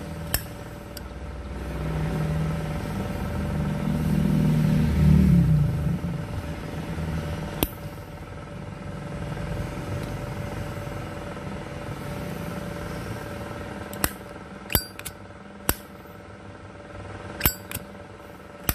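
A motor vehicle passing, its low hum building to its loudest about four to five seconds in and then fading. Sharp metallic clicks come every few seconds, mostly in the second half: the lid of a Zippo lighter with a newly replaced hinge being snapped open and shut.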